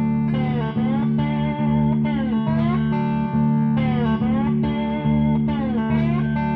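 Background music led by guitar, over a steady low sustained tone, with a phrase that slides down and back up in pitch every couple of seconds.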